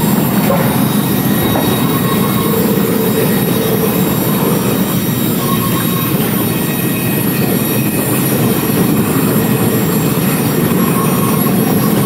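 Sawmill log-handling machinery running steadily as a log travels along a chain conveyor, a continuous loud mechanical noise.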